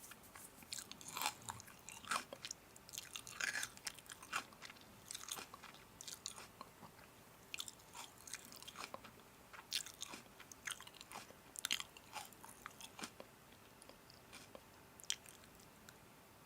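A person chewing and biting food, with irregular crisp crunches and clicks close to the microphone.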